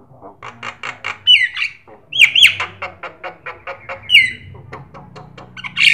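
Javan myna (jalak kebo) singing: quick runs of short, clicking notes, several a second, broken by loud squealing whistles that drop in pitch, with the loudest burst near the end.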